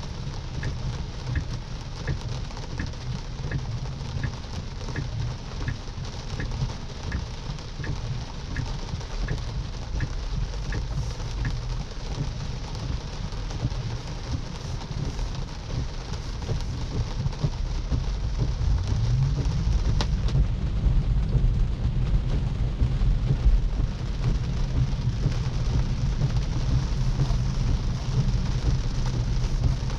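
Rain falling on the car, heard from inside a Tesla's cabin over tyre and road noise. A turn signal ticks about one and a half times a second for the first dozen seconds. Past halfway a low hum rises and the road rumble grows louder as the car speeds up, with a single sharp click about twenty seconds in.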